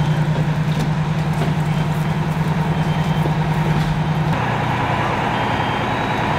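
Fire truck engine running steadily at the fireground, a loud even drone with a fast pulsing beat; its tone drops slightly and shifts about four seconds in.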